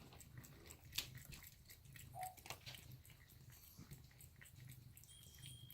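Faint chewing and biting with scattered small clicks: a melanistic Savannah cat eating, with one sharper click about a second in.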